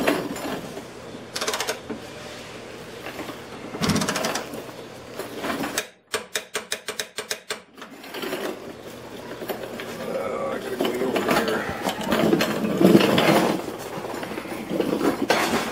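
Torque wrench on a car's subframe bolts: the ratchet clicks quickly, about ten a second, for a second and a half near the middle, among scattered knocks and metal handling sounds while the subframe collar bolts are being torqued.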